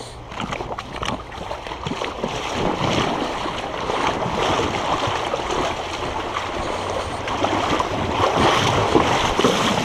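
Someone wading through shallow river water in waders: continuous splashing and sloshing, with uneven surges as the legs push through the current.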